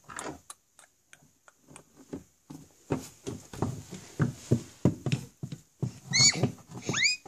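A child playing at horses, making a quick run of clip-clop galloping sounds and then two short, high neighs near the end.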